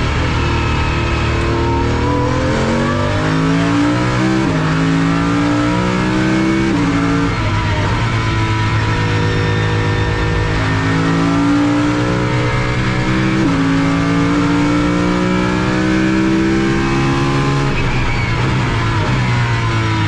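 Pagani Huayra R's naturally aspirated V12 heard from inside the cabin under hard acceleration, its pitch climbing and then dropping with each quick upshift, several times over. Near the end the pitch falls away as the car slows.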